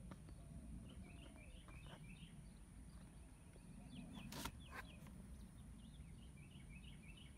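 Faint birds chirping in short runs of quick notes over low background rumble, with a single sharp click about four and a half seconds in.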